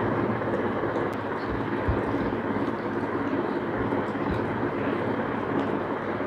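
A steady rushing background noise, with a few soft low thumps.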